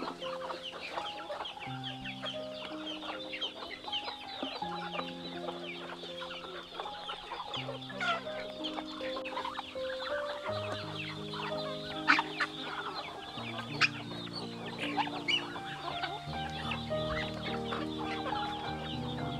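A flock of chickens clucking and calling continuously while feeding, a dense chatter of short calls, with two sharp louder calls or clicks past the middle. Background music with long held notes runs underneath.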